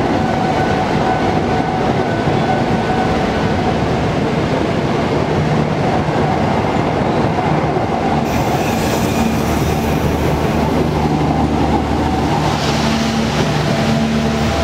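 Passenger train coaches passing close by, their wheels running on the rails in a loud, steady rumble. A higher hiss joins in near the end.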